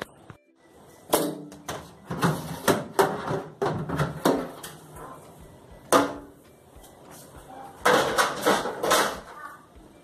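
Refrigerator being emptied and cleaned: a series of knocks and clatters as its door, drawers, shelves and containers are handled. The loudest bursts come just after a second in, about six seconds in, and again around eight to nine seconds.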